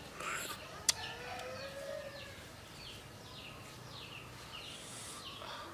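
A bird repeating a short falling chirp about twice a second. A faint, drawn-out call rises and falls between about one and two and a half seconds in, and there is a single sharp click about a second in.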